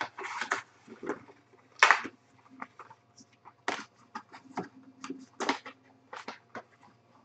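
Foil trading-card packs crinkling and being torn open, with cards being handled: a run of irregular short crackles and clicks, the loudest about two seconds in.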